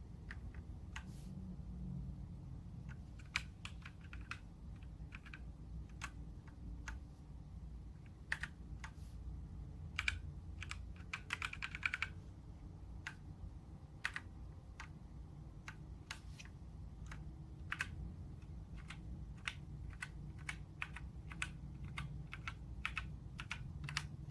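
Typing on an HP GK100 mechanical keyboard with Outemu brown switches: irregular key clicks, with a quick run of keystrokes about halfway through.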